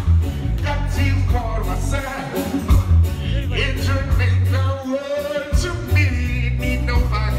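Live reggae vocals: a man singing into a microphone over a loud backing track with a heavy, pulsing bass line, through a PA system.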